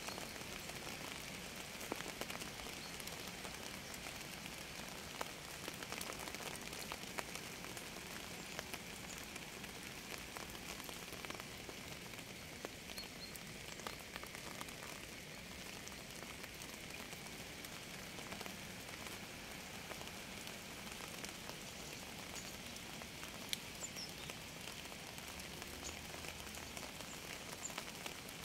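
Steady rain falling on a surface, with many sharp individual drop hits ticking through an even hiss.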